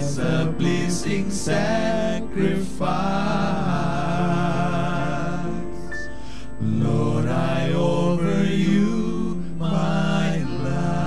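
A male vocal quartet sings a slow worship song in close harmony, with piano accompaniment. The voices hold long chords, with short breaks about six and ten seconds in.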